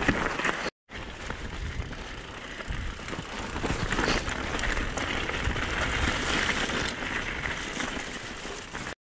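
Mountain bike riding over a rough stony track: a steady hiss of tyres on gravel with many small rattles and knocks from the bike over the bumps, over a low rumble. The sound cuts out briefly about a second in and again near the end.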